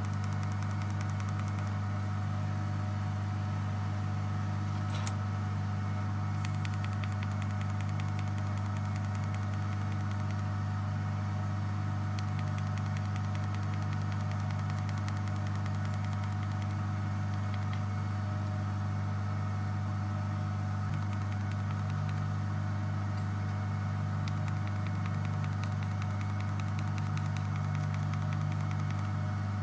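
TIG welding arc burning steadily, with the welding machine's constant electrical hum and buzz that does not change throughout.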